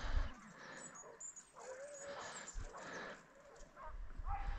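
Hunting dogs yelping and baying faintly in the distance: several short calls that rise and fall in pitch, typical of hounds giving tongue as they run a hare.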